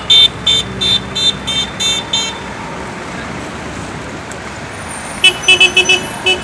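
Car horns honking in a run of rapid short toots, going quiet for a couple of seconds in the middle, then tooting again near the end.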